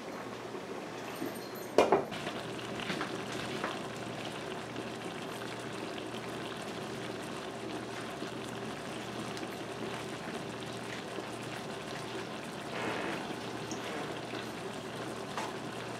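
Vegan vegetable stew simmering in a pan, a steady soft bubbling and crackling, with one sharp knock about two seconds in.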